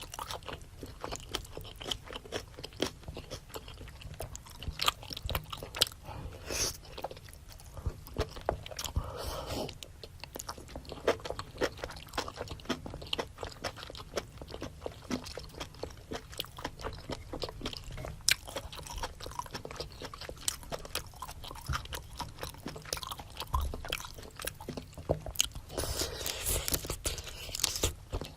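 Close-miked mouth sounds of someone eating spicy seafood boil: wet chewing with many small crunchy clicks and smacks, and a few longer slurping or crackling bursts, the longest near the end.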